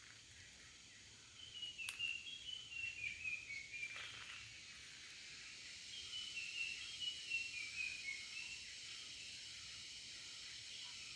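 Cicada buzz as a steady, high, hissing drone, with a bird singing twice over it: each time a run of short notes stepping down in pitch.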